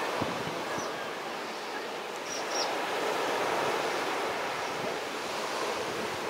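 Sea surf breaking on a sandy beach, a steady wash of noise, with light wind gusting on the microphone.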